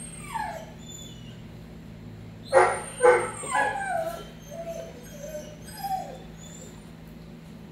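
Young puppy yipping and whining: two sharp yips about two and a half seconds in, then several short whines that fall in pitch.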